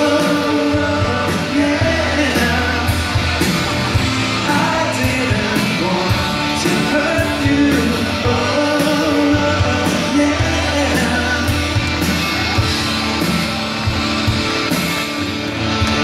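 Live rock band playing a song with electric guitars, drums and sung vocals, heard from out in the audience.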